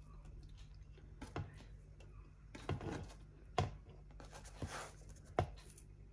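Sliced red onion rings being slid off a plastic cutting board onto rice in a pan: about five sharp taps with soft scraping between them, over a steady low hum.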